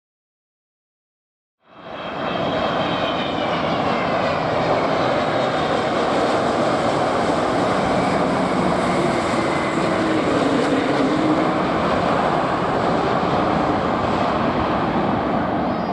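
After about a second and a half of dead silence, the loud, steady roar of an airliner passing close by comes in. Its high whine falls in pitch as it goes past.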